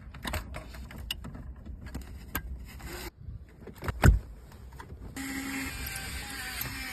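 Scattered clicks and knocks of dashboard parts and cables being handled, with one loud thump about four seconds in. From about five seconds a steady hum with faint held tones takes over.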